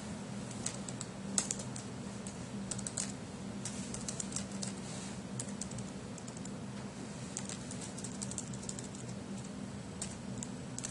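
Computer keyboard being typed on, irregular runs of key clicks with short pauses, over a low steady hum.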